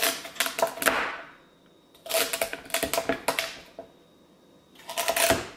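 Chef's knife slicing celery stalks on a cutting board: quick runs of crisp chopping strokes, in three bursts with short pauses between.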